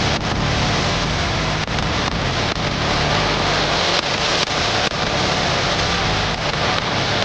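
Loud, steady rushing noise like heavy rain, with faint irregular knocks through it.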